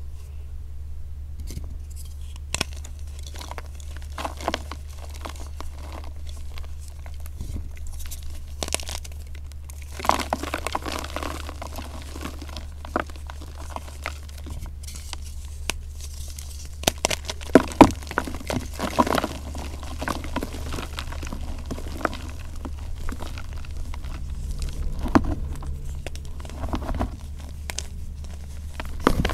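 Blocks of dyed, reformed gym chalk being pressed and crumbled by hand, giving irregular crunches and crackles of breaking chalk and powder. The crunches are busiest and loudest around the middle, with a few sharp cracks.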